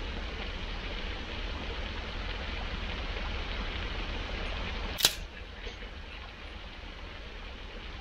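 Steady rushing of sea and wind on the beach, with one sharp crack about five seconds in as a piece of driftwood is snapped off.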